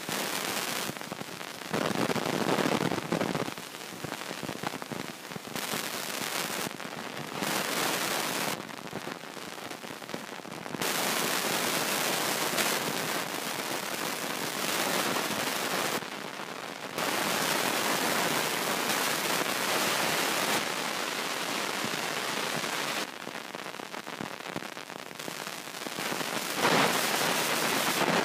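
Wind and road noise inside a moving car: a crackling hiss that jumps between louder and quieter stretches every few seconds.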